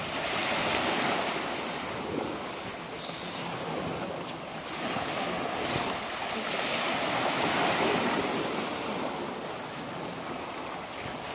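Waves washing onto a beach, with wind on the microphone; the wash swells about a second in and again near eight seconds in.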